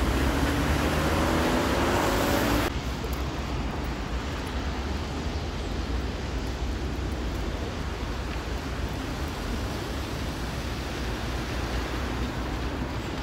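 Road traffic on a wet city street. For the first couple of seconds a vehicle's engine rises in pitch as it accelerates. At about 2.7 s the sound drops abruptly to a steady traffic rumble and tyre hiss.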